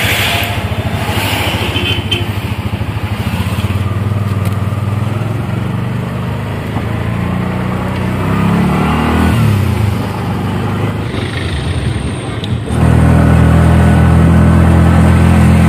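Motorcycle engine of a tricycle (motorcycle with an enclosed sidecar) running on the move, heard from inside the sidecar cab. Its pitch rises and falls about halfway through, and a few seconds before the end it becomes suddenly louder and steadier.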